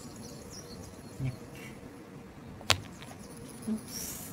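Quiet handling of a plastic Play-Doh playset, with one sharp click a little over halfway through. Faint high chirps sound in the background.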